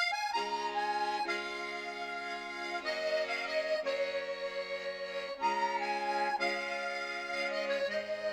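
Instrumental music led by an accordion: held chords under a melody, the chords changing about every second or so.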